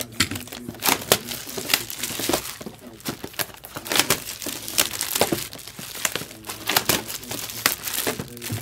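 Plastic wrapping being crinkled and torn as sealed trading-card product is opened: a dense, irregular run of sharp crackles.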